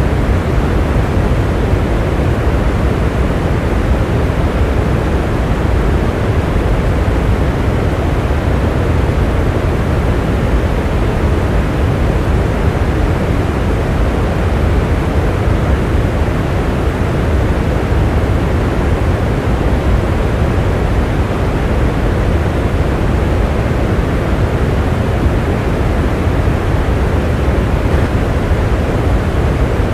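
Steady rain: a dense, even hiss that stays the same throughout, with no single drops or thunder standing out.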